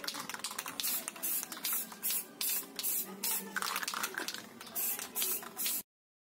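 Aerosol spray can of Bosny primer hissing in short, quick bursts, a few a second, as a second coat of primer is sprayed onto a motorcycle fairing panel. The hissing cuts off suddenly shortly before the end.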